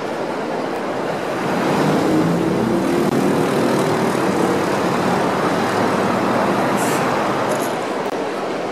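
City road traffic: a steady wash of engine and tyre noise, louder for several seconds in the middle as a vehicle's engine hum passes close by.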